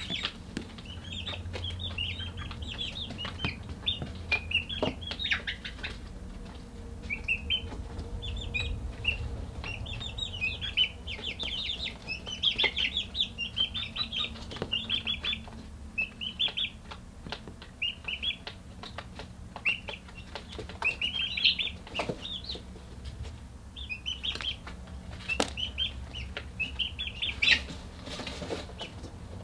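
Young chickens peeping: rapid runs of short, high chirps in clusters every second or so, with scattered sharp taps and a low steady hum underneath.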